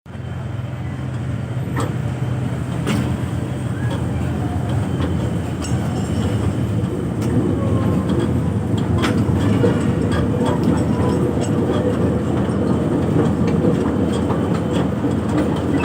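A miniature toy train ride running along: a steady rumble with a few scattered sharp clicks, slowly getting a little louder over the first half.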